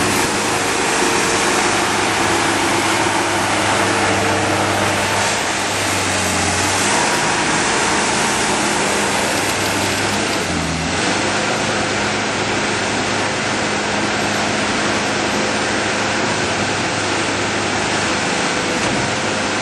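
ASV 2810 Posi-Track loader's Perkins diesel engine running steadily over a strong hiss, its note changing briefly about ten to eleven seconds in.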